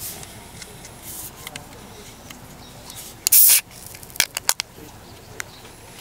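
A short, loud spray-like hiss lasting about a third of a second, followed about half a second later by a quick run of sharp clicks.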